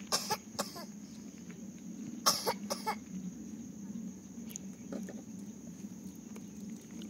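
A person coughing in two short bouts: a pair of quick coughs right at the start and another pair about two seconds in.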